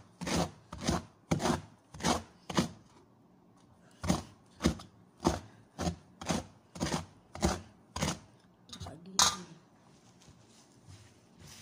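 Two-handled knife chopping a pile of jute mallow (saluyot) leaves against a metal pot, in steady strokes about two a second. The chopping pauses briefly about three seconds in, resumes, then gives way to a few lighter knocks and one sharp knock about nine seconds in before it stops.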